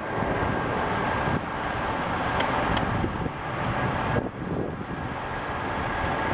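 Steady rushing jet noise from the Rolls-Royce Trent 700 engines of an Airbus A330-300 airliner moving along the runway, with wind buffeting the microphone.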